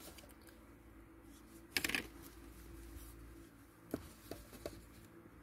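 Light handling noises close to the microphone: a short rustling scrape about two seconds in, then three small clicks, as small makeup items are handled.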